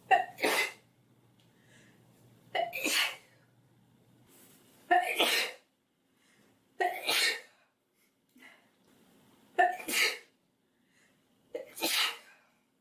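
A girl sneezing six times in a row, about every two seconds: a pepper-induced sneezing fit.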